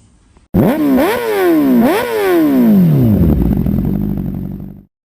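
Motorcycle engine running, blipped three times in quick revs, each rising sharply and falling back, then dropping back toward idle. The sound starts suddenly about half a second in and cuts off suddenly near the end.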